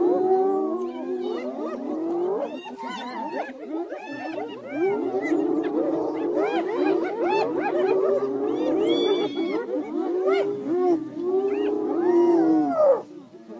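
Many animals calling over each other: a dense mass of overlapping cries that glide up and down in pitch, dipping briefly near the end.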